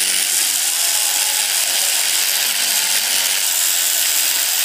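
Electric toothbrush running steadily, its brush head pressed against a small plastic toy figure.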